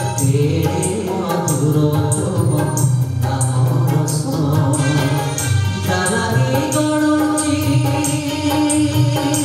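Odia devotional bhajan sung live by a man into a microphone, with tabla and a bright jingling percussion beat of about two strokes a second. About two thirds of the way in he settles into a long held note.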